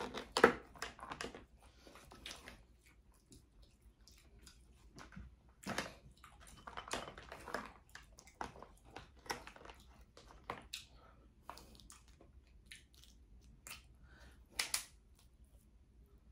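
Close-up eating sounds: chewing, with scattered crunches and cracks of snow crab shell being broken open. The loudest crack comes about half a second in and another near the end.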